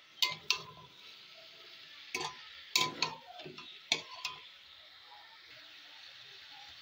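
Metal spatula knocking and scraping against a kadai while chicken and onion masala is stirred: about eight sharp clatters in the first four and a half seconds, then only a faint steady sizzle.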